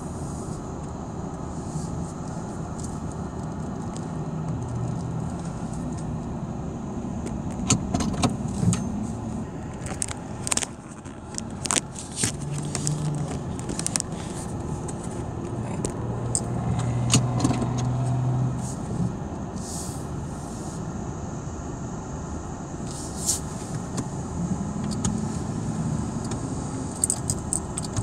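Car engine and road noise heard from inside the cabin as the car rolls slowly, with a run of sharp clicks and rattles about a third of the way through.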